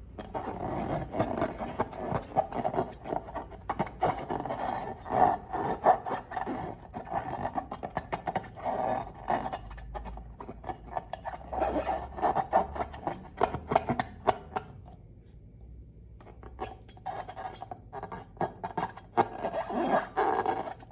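Slime being squeezed and worked by hand: a dense run of sticky squelching and crackling clicks, with a short pause about fifteen seconds in.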